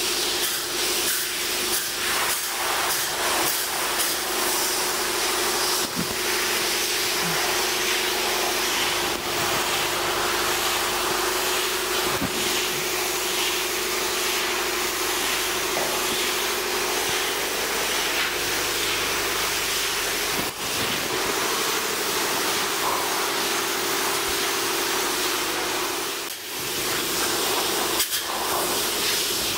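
Spray polyurethane foam gun hissing steadily as compressed air blows the two-component isocyanate and polyol mix onto the floor, with a steady hum underneath and a short break near the end.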